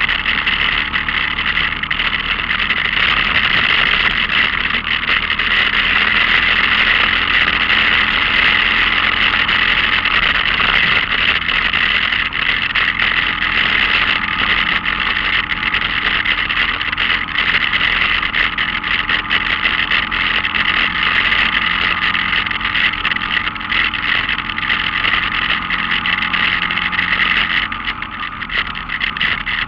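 Off-road vehicle engine running steadily as it drives along a dirt trail, picked up by a camera on its hood, with a constant rush of wind and ride noise. The level dips briefly near the end.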